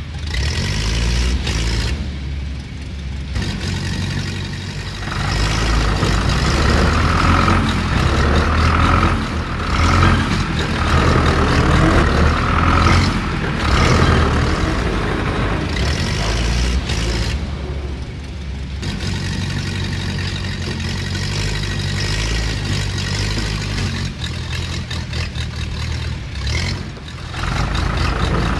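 Heavy truck engine sound, running and revving as if under load, a recorded effect laid over the toy vehicles rather than a sound the toys make themselves. It grows louder about five seconds in.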